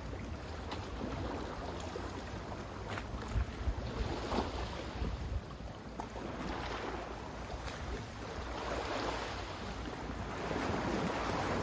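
Sea waves washing on the shore: a continuous rushing surf that swells around four seconds in and again near the end, with a few small splashes and crackles.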